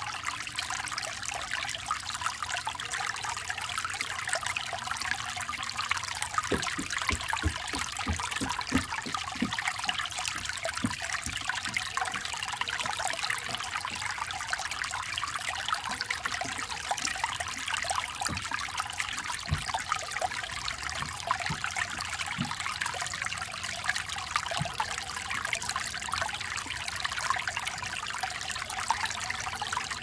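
Small brook babbling and trickling over stones, a steady, flickering rush of water. A run of low thuds from about six to ten seconds in, and a few more later, from footsteps on the wooden footbridge over the stream.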